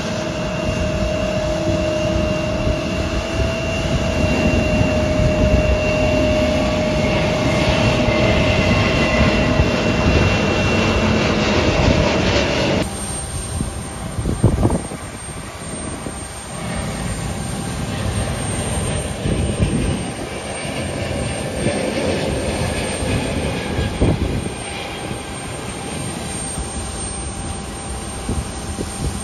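Jet engines of a taxiing Embraer regional jet, a steady whine with a high and a middle tone over a rumble. About 13 s in the sound drops abruptly to a quieter, steady airport apron rumble with a few short knocks.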